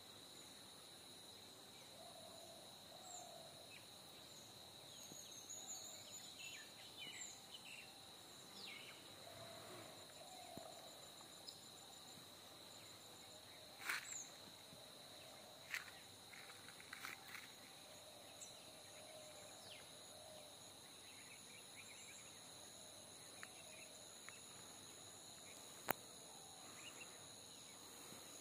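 Faint rural outdoor ambience: a steady high-pitched insect drone, with short bird chirps scattered throughout and a few sharp clicks, the loudest about halfway through and near the end.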